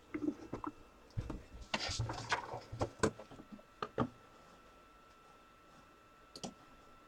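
A scatter of light clicks and rustling handling noises over the first four seconds, then near quiet with a faint steady high whine.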